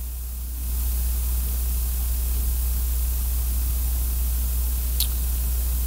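Steady low electrical hum with hiss from the sound system, the hiss getting louder just under a second in. A brief faint click about five seconds in.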